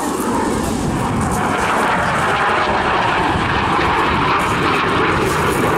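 Jet noise from a SAAB 35 Draken's Rolls-Royce Avon–derived turbojet as the fighter flies a display pass: a steady, dense rush that swells slightly over the first second or two.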